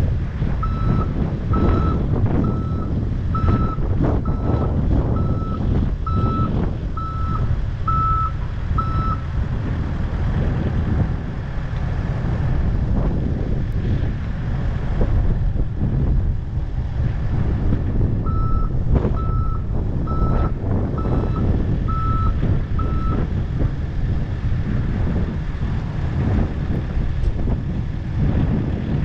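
Reversing alarm beeping about once a second, about ten beeps, then a pause of several seconds, then about six more, over the steady low rumble of a heavy diesel engine.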